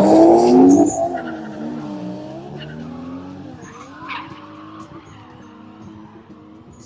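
Two drift cars in a tandem run: engines revving hard with tyre squeal. After about a second the sound drops away sharply and fades as the cars pull off.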